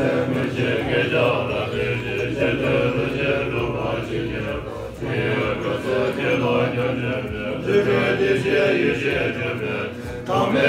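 Tibetan Buddhist monks chanting prayers together in a continuous, steady recitation.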